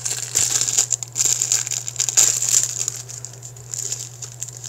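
Clear plastic snack-cake wrapper crinkling in irregular bursts as it is pulled open by hand, thinning out over the last second or two.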